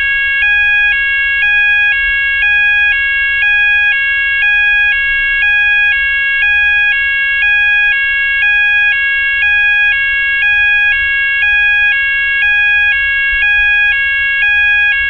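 Fire alarm sounder: a loud two-tone alarm that switches pitch about every half second over a steady high tone, with a faint low rumble beneath.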